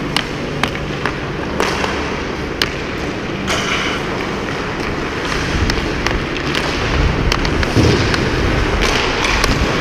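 Hockey skates scraping and gliding on ice, with a hockey stick striking the puck in a series of sharp clicks as it is carried up the rink.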